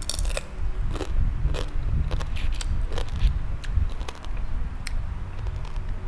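Close crunching and chewing of crisp food, a piece of pickled crab bitten through: a run of sharp, irregular crunches that thin out towards the end.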